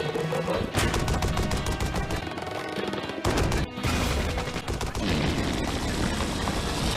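Cartoon action soundtrack: a rapid run of sharp cracks like machine-gun fire over music, breaking off for a moment about three seconds in before the busy mix of effects and music resumes.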